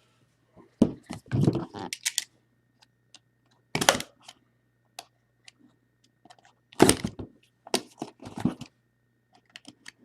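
Scattered handling sounds at a tabletop: light clicks and taps, with a few short, louder rustles and knocks, about six of them spread through.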